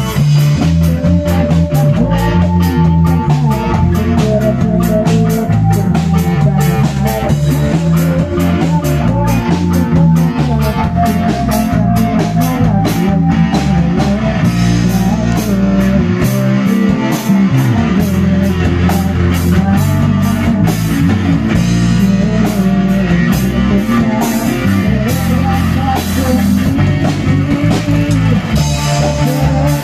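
Live rock band playing: electric guitars and keyboard over a drum kit keeping a steady beat.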